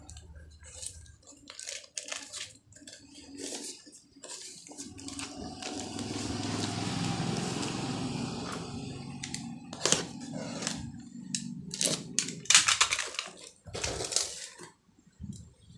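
Cardboard parcel wrapped in clear packing tape being handled and torn open: crinkling, scraping and tearing of the tape and cardboard in short bursts, with a longer steady rasp in the middle and the loudest tearing a couple of seconds before the end.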